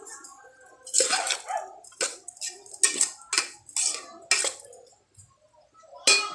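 Metal spoon scraping and knocking against the inside of a metal cooking pot while stirring diced pork lung and heart, about one stroke a second, with a pause about five seconds in and another knock near the end.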